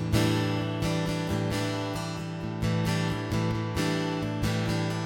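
Acoustic guitar strummed in steady chords, an instrumental gap between sung lines of a gospel song.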